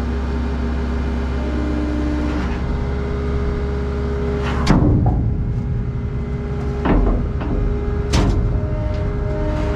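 A vehicle engine runs steadily, with three sharp clanks or knocks partway through.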